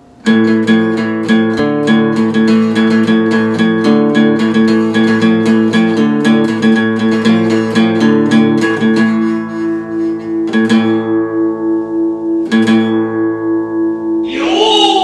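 Acoustic guitar strummed in a quick, even rhythm of chords, then slowing to a few single strums left to ring. Near the end a voice comes in with a sliding note.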